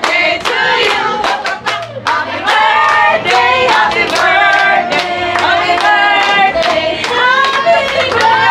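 A group of voices singing a birthday song together, with hands clapping along steadily in time.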